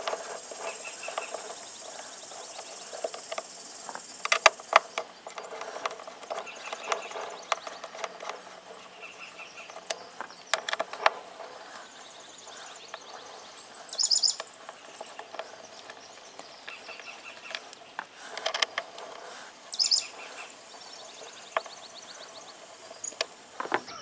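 Small hex bolts being unscrewed with an Allen wrench from a portable fridge's side panel: a few scattered metallic clicks and taps. Birds chirp twice and insects hum steadily in the background.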